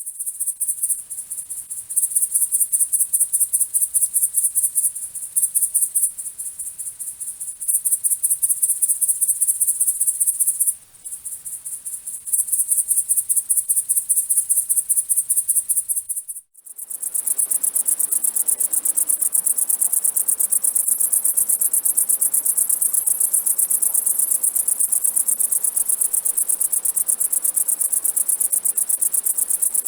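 Insects chirping in a fast, high-pitched, pulsing trill. The trill swells and drops in loudness in its first half. Just past halfway it breaks off briefly, then carries on steadily over a fainter, lower background hum.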